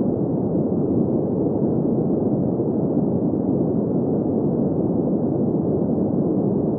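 Steady synthetic green noise, a smooth, unchanging hiss weighted toward the low-middle pitches with no highs.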